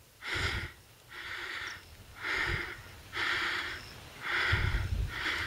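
A person breathing hard, about one breath a second in an even in-and-out rhythm, with a few soft low thumps.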